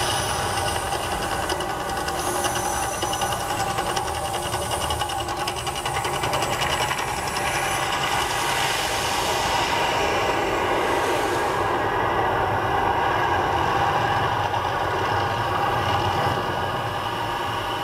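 The Mirage volcano show erupting: a steady, loud rumbling roar of gas flame bursts mixed with the attraction's amplified eruption sound effects. The hissing top of the roar drops away about eleven seconds in, while the low rumble carries on.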